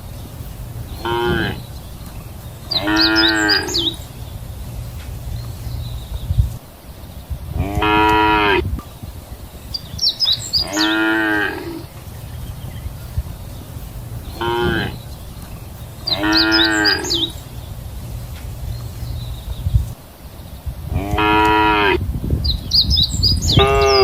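Cows mooing, about eight separate calls spaced a couple of seconds apart, some short and some drawn out to about a second, over a steady low rumble.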